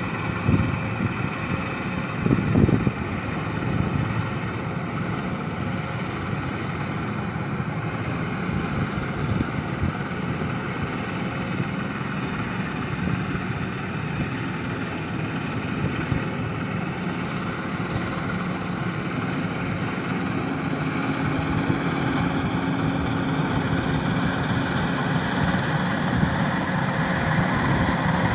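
An engine running steadily, with a few knocks in the first few seconds, growing gradually louder over the last part.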